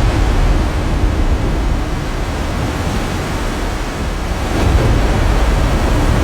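Floodwater rushing, a loud steady roar with a deep rumble underneath.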